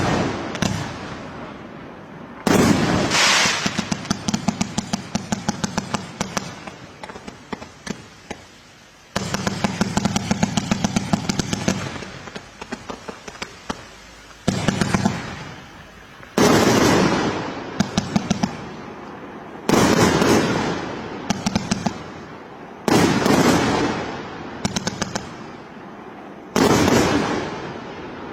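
Fireworks going off: a string of sudden loud bangs, each followed by a rapid crackle that fades over a second or two. The bursts come every few seconds, closer together in the second half.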